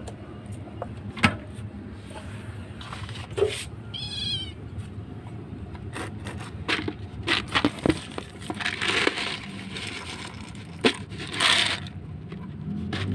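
A stray calico cat meows once, a high wavering call about four seconds in, then eats dry kibble with a string of sharp crunches and clicks.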